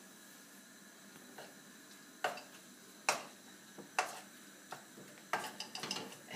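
Wooden spatula knocking against a non-stick frying pan while stirring zucchini noodles in tomato sauce. The knocks come about once a second, then as a quicker run near the end.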